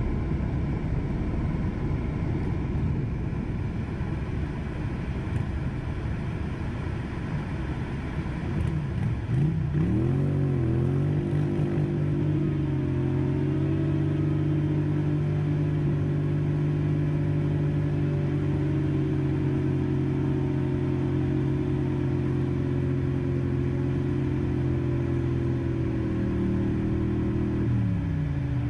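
Motorcycle engines at a burnout, heard from inside a vehicle's cab: a low rumble, then an engine revs up and down about ten seconds in and is held at a steady high rev for about fifteen seconds while the rear tyre spins and smokes, dropping off near the end.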